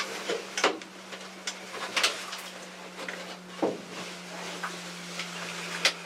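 Irregular small clicks, light knocks and rustles of handling inside a small hunting blind, over a steady low hum.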